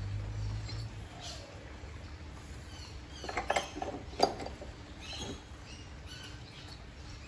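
A spark plug being threaded into a Victa two-stroke mower's alloy cylinder head, then a spanner fitted and turned on it: faint scraping, with a few light metal clinks from the tool a little past three seconds in, about four seconds in and again near five.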